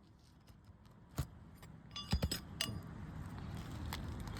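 Metal clinks from a roof snake and roofing nail being worked under an asphalt shingle: one sharp tap about a second in, then a quick cluster of ringing clinks around two seconds in. A low rumble grows toward the end.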